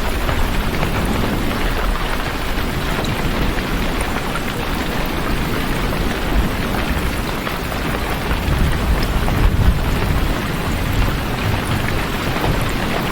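Heavy rain falling steadily, an even hiss with a strong low rumble beneath it.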